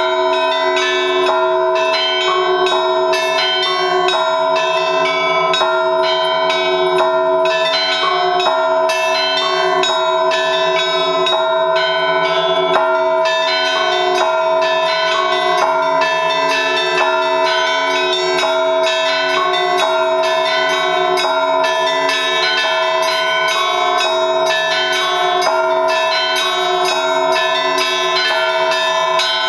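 Russian Orthodox church bells rung as a trezvon in 3/4 time by two ringers: smaller bells struck in a quick, continuous rhythm over the steady ringing of the larger bells.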